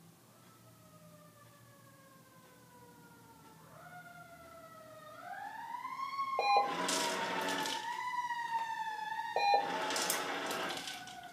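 An emergency vehicle siren wailing, rising in pitch about four seconds in and then gliding slowly down, with two loud horn blasts about three seconds apart near the end.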